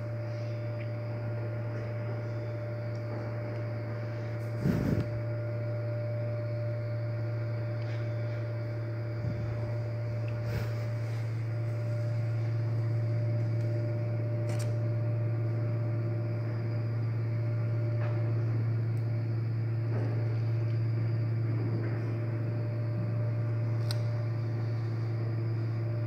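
A 1969 passenger lift in motion, with a steady low electrical hum and a thin higher whine. There is a brief knock about five seconds in, and a few faint clicks later.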